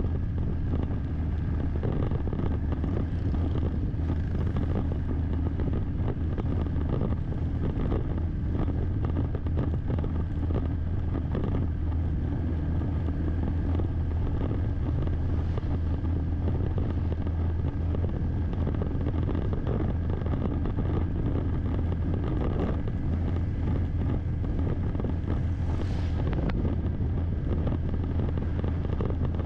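Steady drone of a motorbike on the move: engine and road noise with wind on the microphone, and a brief whoosh near the end.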